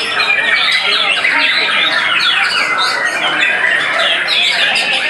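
White-rumped shamas (murai batu) singing in competition: a dense, unbroken tangle of quick rising and falling whistled notes and trills, several birds overlapping at once.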